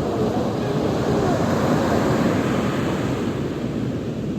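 Sea waves breaking and washing onto a beach: a steady rush of surf that swells slightly about halfway through, with wind buffeting the microphone.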